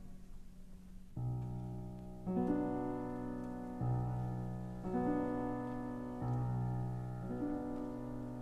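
Background piano music: slow, sustained notes and chords, coming in about a second in after a near-quiet start.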